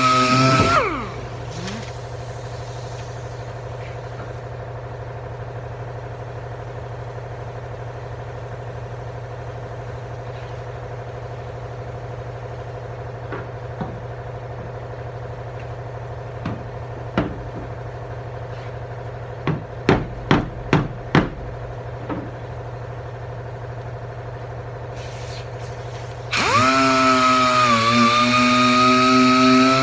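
A handheld power tool running with a pitched whine spins down about a second in, then starts up again near the end. In between there is a steady low hum and a quick run of about five sharp knocks.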